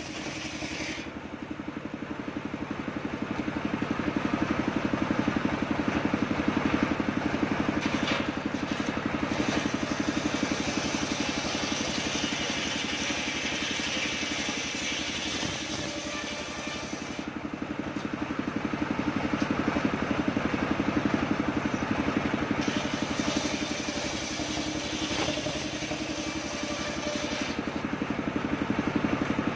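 Homemade engine-driven circular saw ripping coconut-palm wood: the engine runs steadily with a fast even pulse. The sawing grows louder and harsher in long stretches as the wood is pushed through the blade, easing off in between.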